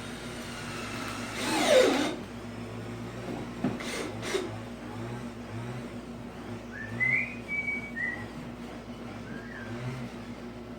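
A power drill's motor whines and falls steeply in pitch as it spins down, then there are a few sharp clicks. Short high chirps come later over a steady low hum.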